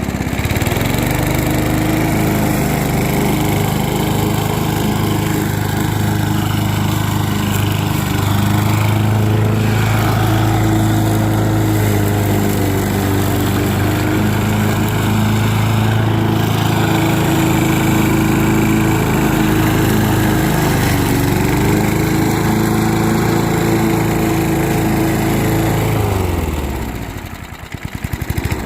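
Snapper walk-behind lawn mower's small engine running steadily on its first start after long storage in a barn. About 26 seconds in it slows, falling in pitch, and winds down to a stop.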